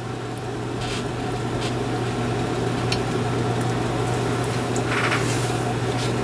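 Tjernlund 4-inch in-line exhaust fan running steadily with a low hum, pulling the fluxing smoke off a pot of molten lead. A few faint taps of a steel stirring rod in the pot.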